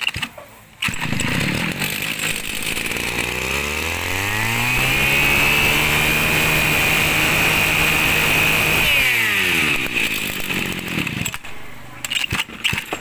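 Mitsubishi TL33 33cc two-stroke brushcutter engine starting about a second in and idling. It then revs up to a high, steady speed for about four seconds before dropping back to an uneven idle.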